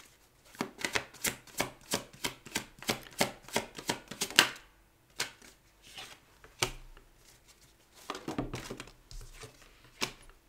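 A tarot deck being shuffled by hand, a quick even run of crisp card taps, about five a second, for some four seconds. Then scattered, quieter taps and slides as cards are drawn and laid down.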